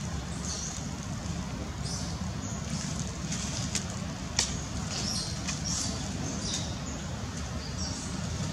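Steady low outdoor rumble with scattered short, high crackles of dry leaves stirred by the monkeys moving on the ground; the sharpest crackle comes about halfway through.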